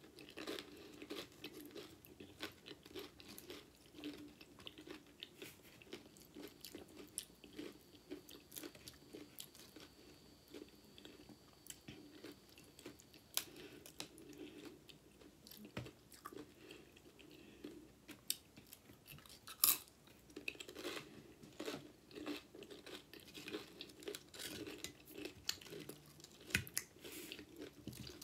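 Close-up chewing and crunching of loaded nachos made with Doritos Spicy Nacho tortilla chips: a steady run of short, crisp crunches and mouth sounds, the loudest crunch about twenty seconds in.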